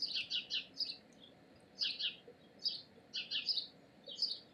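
A bird chirping: quick runs of two to four high chirps, repeated every second or so.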